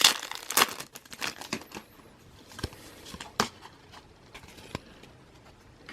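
Foil wrapper of a Pokémon booster pack crinkling and tearing, densest in the first second, then a few scattered light clicks and rustles of packaging and cards being handled.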